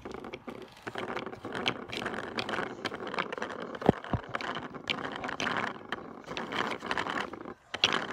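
Rustling and rubbing of a phone's microphone being handled up close, with many small clicks and knocks as a toddler touches the phone and plastic toy pieces.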